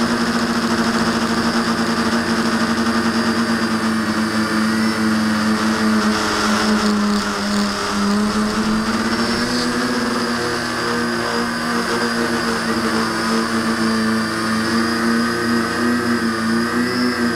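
A V-tail quadcopter's electric motors and propellers, heard through its own onboard camera, humming steadily. The pitch dips slightly about seven seconds in and wavers again near the end as the throttle changes.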